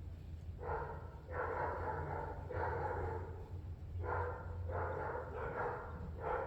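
A dog barking repeatedly, about seven barks, each roughly half a second to a second long, over a steady low hum.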